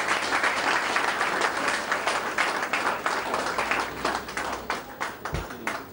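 Audience applauding, dense at first and thinning to scattered claps over the last couple of seconds.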